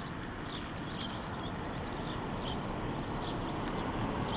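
Outdoor ambience: a steady low rumble of background noise with short, high bird chirps scattered through it.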